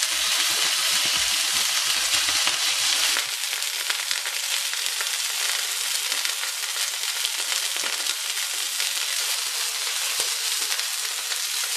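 Pork loin steak searing in hot oil in a stainless steel frying pan: a steady sizzle with fine crackle. There are light knocks in the first three seconds, and the sizzle drops slightly in level after that.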